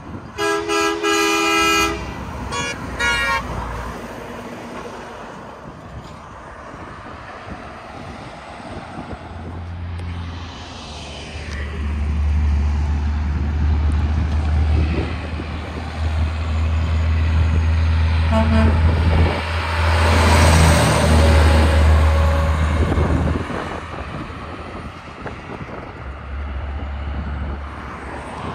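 Semi truck's air horn blowing a long chord for about a second and a half, followed by a few short toots. The truck then approaches and passes: its diesel engine drone and tyre noise grow loud and fade away.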